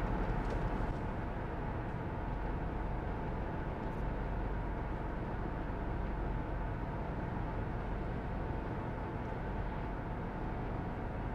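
Steady road and engine noise of a moving vehicle, heard from inside the cabin: an even low rumble with no changes.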